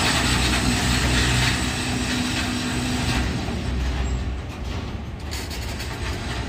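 Freight train of covered wagons rolling past, wheels running on the rails with a steady rumble and hiss. The noise eases off a little after halfway as the last wagons move away.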